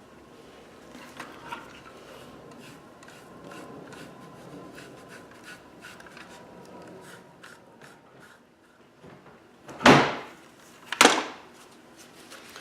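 Hands wiping and scrubbing an EST SIGA-278 fire alarm pull station clean: soft rubbing with small clicks and knocks, then two loud sudden sounds about a second apart near the end.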